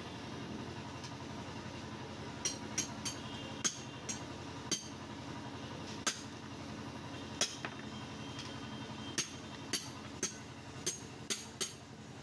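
Sharp metallic clinks, about a dozen, at irregular intervals from a couple of seconds in, over a steady low hum.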